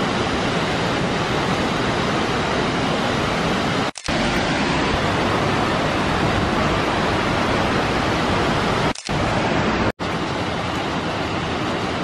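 Steady rushing of the Giessbach Falls, a tall waterfall in several tiers. The sound breaks off for a split second at a cut about four seconds in, and twice more about three-quarters of the way through.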